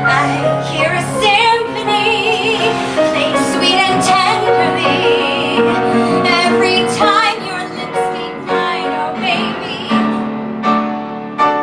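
A woman singing solo with piano accompaniment, holding several notes with a wide vibrato.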